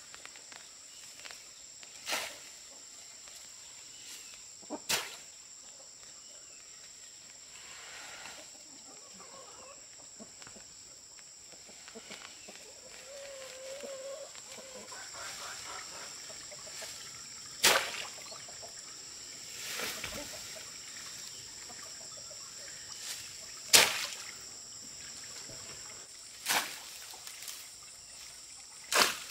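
Outdoor rural ambience: a steady high-pitched hum with half a dozen sharp, short knocks or clicks scattered through it.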